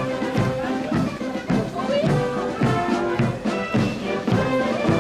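Guards military brass band playing a march outdoors, brass melody over a steady drum beat.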